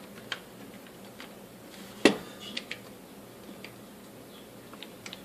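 Small metal parts and tools clinking and knocking on a workbench, with one sharp, much louder clack about two seconds in.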